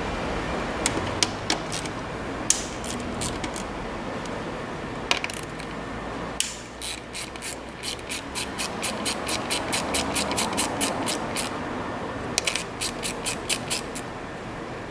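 Hand ratchet wrench clicking in runs: a few scattered clicks, then a steady run of about four to five clicks a second, and another short quick run near the end.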